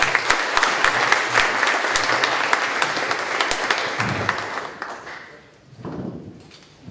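Audience applauding, dense clapping that dies away about five seconds in.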